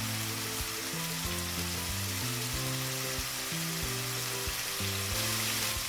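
Marinated chicken pieces frying in hot oil with a steady sizzle, over low background music.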